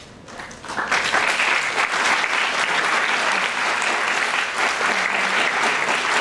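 Audience applause that breaks out about a second in, swelling quickly into steady clapping.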